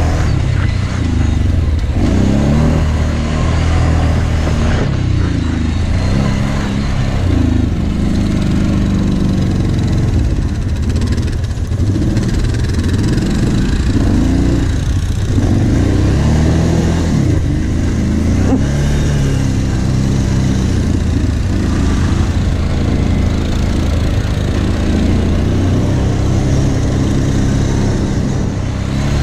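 Kawasaki Brute Force 750 ATV's V-twin engine running under way, its pitch rising and falling again and again as the throttle opens and closes.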